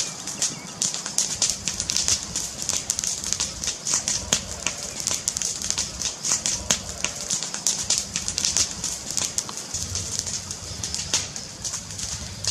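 Fireplace fire crackling: a dense run of irregular sharp pops and snaps over a steady hiss and a low rumble.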